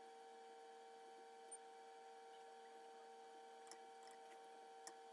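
Near silence: a faint steady electrical hum, with three faint ticks.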